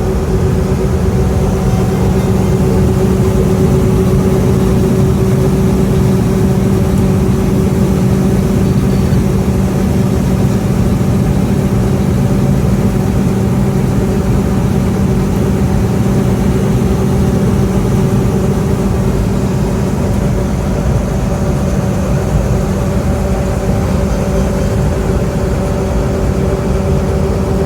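Combine harvester running steadily during corn harvest: a constant engine and machinery drone with a steady hum, heard from inside the cab.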